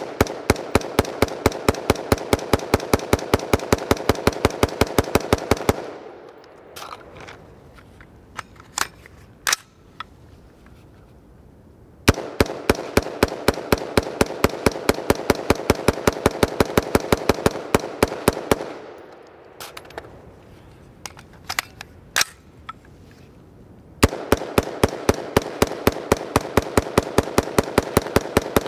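BCM AR15 5.56 rifle fired in rapid semi-automatic strings of about five shots a second. Three long strings, with gaps of about six seconds in between that hold a few sharp clicks and clanks.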